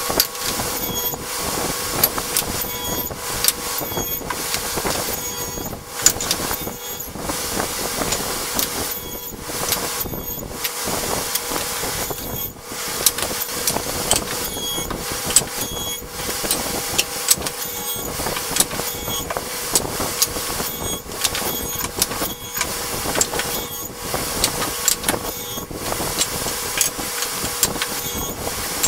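Table saw running with a steady hum while short wooden boards are ripped one after another. The noise swells with each cut and falls back between them, with sharp knocks of wood pieces on the saw table.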